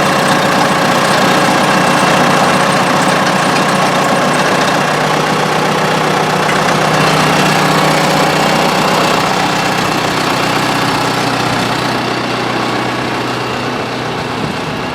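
Case 780 backhoe's diesel engine running steadily at idle. It was just fired up after sitting unused outdoors for a couple of years. The sound eases slightly near the end.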